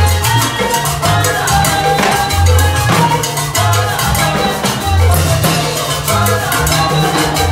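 Salsa music with a repeating bass line and melody, with timbales, a cymbal and a metal güira played over it.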